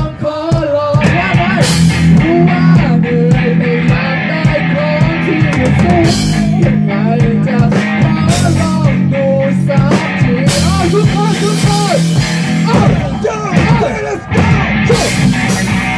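Live rock band playing loud: a drum kit with repeated cymbal crashes under electric guitars.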